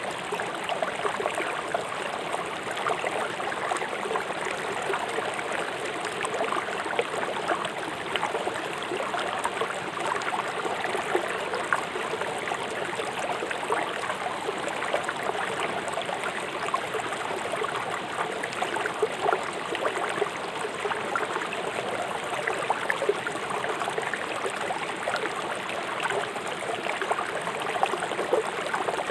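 River water rushing and gurgling steadily over stones, a dense, even splashing without pauses.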